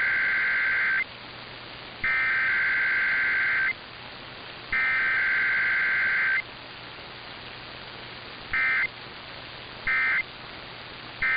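Emergency Alert System SAME digital data bursts over broadcast radio: three long, buzzy, warbling bursts about a second apart, then three short bursts. This is the coded header sent three times, followed by the three end-of-message bursts, with no voice message between them, as in a Required Weekly Test. A faint hiss and a low hum run underneath.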